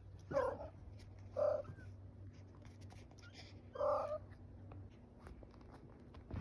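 A cat meowing three times in short calls, the last about four seconds in, over a low steady hum.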